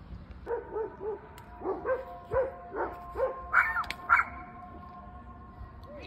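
A dog yipping, about ten short yelps at roughly two a second, stopping about four seconds in.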